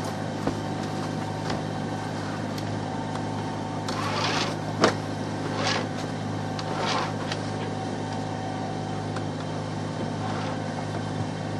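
Sailing yacht's Volvo Penta diesel inboard running steadily under way, a low even drone with wind and water hiss over it. A few sharp knocks come through, the loudest about five seconds in.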